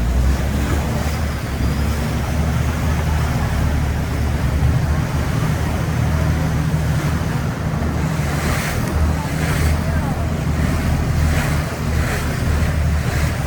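Passenger river boat under way: its engine runs with a steady low hum under the rush of water along the hull and wind on the microphone. The rushing swells into a few louder hissing surges about eight to twelve seconds in.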